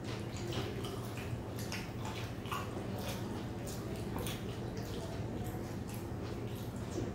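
Wet eating sounds from hand-eaten curry and luchi: fingers squelching in egg curry and chicken feet curry, with chewing and lip-smacking, as many short, irregular wet clicks over a steady low hum.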